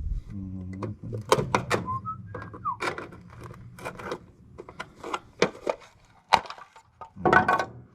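Sharp clicks, cracks and clatters of a scrapped device being pried and pulled apart by hand, with a couple of brief high-pitched chirps about two seconds in.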